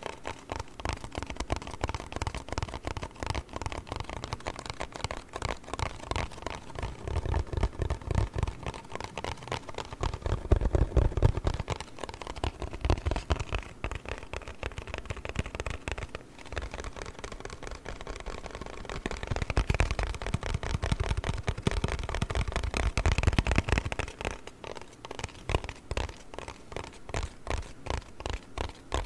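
Cardboard box being handled by hand for ASMR: a dense, fast run of taps and scratches on the cardboard.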